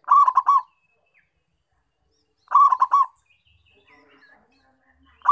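Zebra dove (perkutut) cooing: short phrases of quick, rippling notes, one at the start, another about two and a half seconds in, and a third beginning right at the end.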